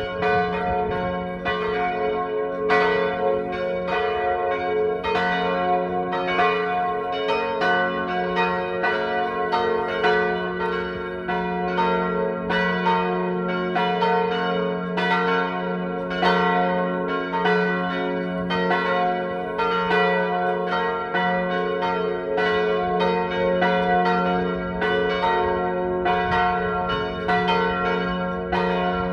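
Three church bells tuned G-flat, B-flat and D-flat (a G-flat major chord) swinging in a full peal. Their strikes come about twice a second in an irregular, overlapping pattern over a long lingering hum.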